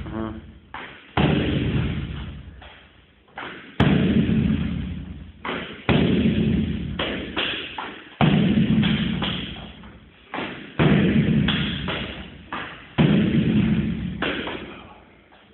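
Heavy kicks thudding into a kicking shield about every two seconds, each blow followed by a long echoing tail, with lighter hits in between.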